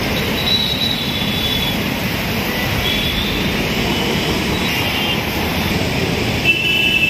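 Steady roadside traffic noise, with a few brief high-pitched squeals.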